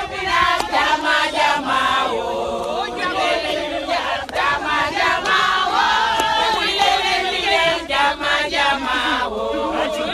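A crowd of many voices singing and chanting together, loud and unbroken.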